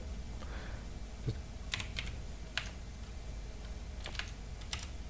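Computer keyboard typing: a handful of separate keystrokes, a few at a time with pauses between them, as a short terminal command is entered.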